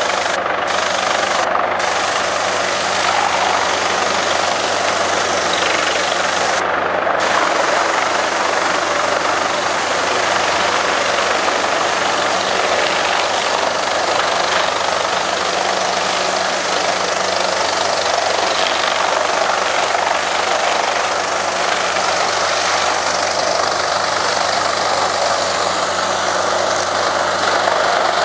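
Mobile wood chipper running at full work, a loud, steady rush of engine and cutter noise as chips are blown out through its discharge chute into a truck trailer.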